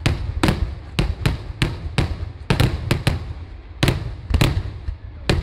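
Kerala vedikattu fireworks going off in a rapid, irregular string of loud bangs, about two or three a second, over a steady low rumble.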